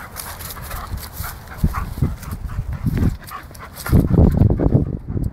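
Two dogs, a Belgian Malinois and an Australian Kelpie, playing and running close by, with short dog whines. From about four seconds in, louder low thumping and scuffling right at the microphone as the kelpie comes up close.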